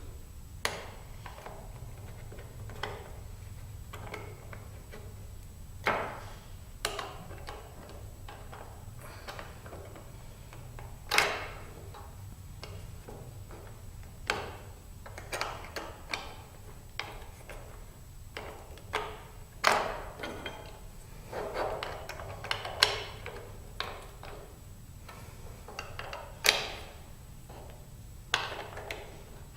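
Irregular small clicks and knocks of metal parts and a screwdriver as the screws on a scraper's sharpening jig are tightened, a few louder taps among them, over a faint low hum.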